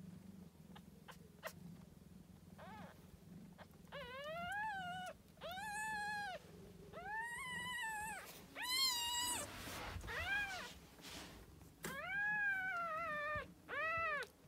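A cat meowing repeatedly: about eight long, high calls, each rising then falling in pitch, starting about three seconds in.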